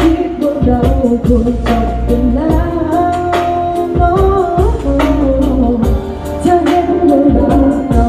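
A woman singing a pop song into a microphone over backing music with a steady beat, amplified through a stage PA system.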